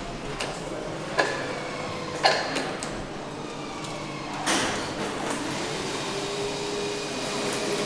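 Metal clinks and clanks of an AMG V8 crankshaft and its steel lifting fixture being handled over the engine block, sharpest about a second and two seconds in and again halfway through, some with a short metallic ring, over steady workshop noise. A steady hum comes in near the end.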